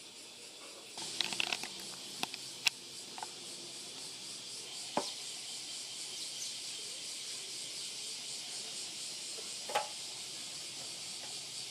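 A steady high hiss, like insects outside, with a few light taps and clicks scattered through it.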